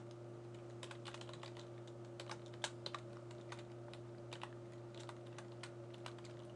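Computer keyboard being typed on: irregular runs of light key clicks, over a steady low hum.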